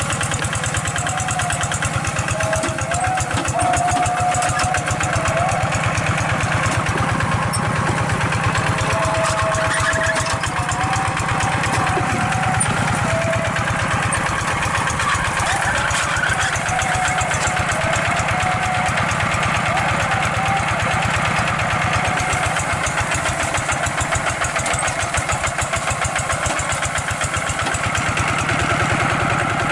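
Kubota RD 85 hand tractor's single-cylinder diesel engine running steadily under load as it pulls a plough through a wet rice paddy, an even, fast pulsing beat.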